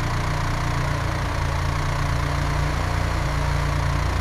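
Engine of a heavy construction machine running steadily at idle, a low, even rumble.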